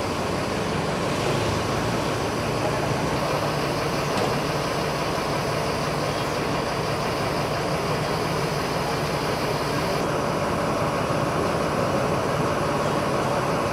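Large coach's diesel engine idling steadily beside the open door.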